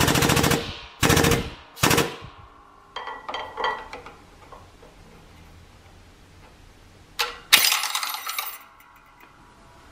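Air-powered shop press pumping in short, rapid rattling bursts as it compresses a 47RE direct clutch drum's piston return springs: three bursts in the first two seconds and a longer one near the end. Light metal clicks in between from the snap ring and pliers.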